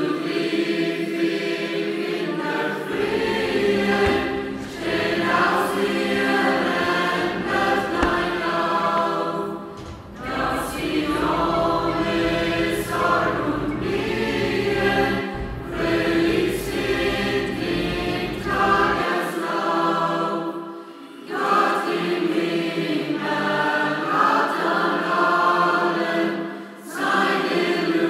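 Choir singing a Christian song in long phrases, with short breaks about ten seconds in and again near twenty-one seconds.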